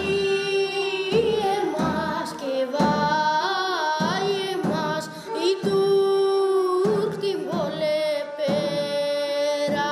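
A boy singing a Pontic Greek folk song in long held notes, accompanied by a bowed Pontic lyra and the regular beat of a daouli drum.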